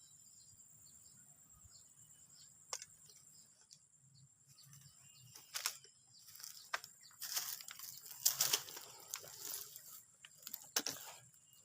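Irregular rustling and crinkling handling noise, loudest in the second half, over a steady high chirring of crickets.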